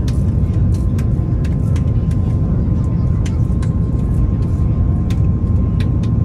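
Steady low roar inside the cabin of an Airbus A330 airliner with its engines running, with a constant faint whine and frequent light clicks and rattles.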